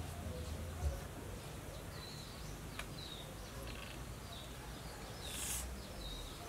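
Quiet outdoor background with faint, short bird chirps scattered through, a single light click a little under three seconds in, and a brief rustling hiss about five seconds in.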